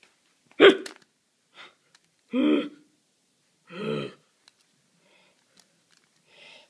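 A person making short wordless vocal noises close to the microphone: a sharp, loud cry about half a second in, then two short pitched vocal sounds a second and a half apart.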